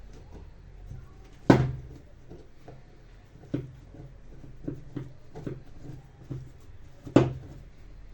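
Handling noise from working on a disassembled angle grinder: two sharp knocks, about a second and a half in and near the end, with several lighter taps and clatters between them.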